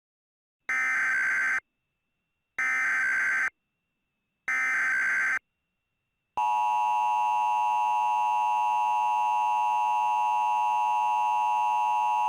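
Emergency Alert System tones. Three bursts of SAME digital header data, each about a second long and a second apart, mark the start of an alert message. About six seconds in, the steady two-tone EAS attention signal begins and holds.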